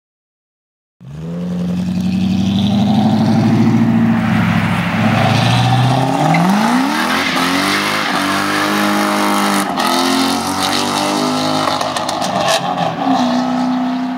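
Lexus SC400's V8 engine running and being revved, starting abruptly about a second in; its pitch climbs around the middle, then falls and wavers.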